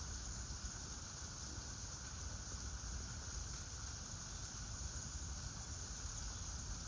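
Steady outdoor background noise: a low rumble with an even hiss above it, no distinct calls or knocks.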